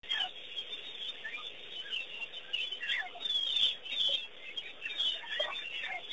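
Many birds chirping and calling over one another, a busy scatter of short chirps and quick falling notes.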